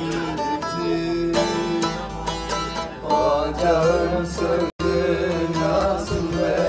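Bağlama (long-necked Turkish saz) being strummed and plucked in a quick folk melody. The sound drops out for an instant about two-thirds of the way through.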